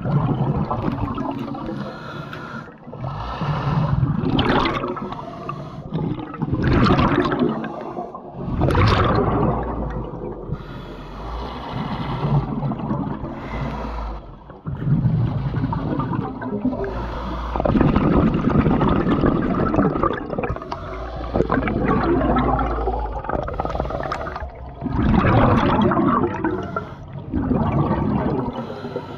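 Scuba diver breathing through a regulator underwater: a hiss of inhaled air, then a bubbling, gurgling rush of exhaled air. The cycle repeats slowly several times.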